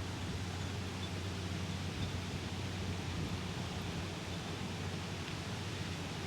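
Steady wind blowing: an even rustling hiss with a low rumble, no single sound standing out.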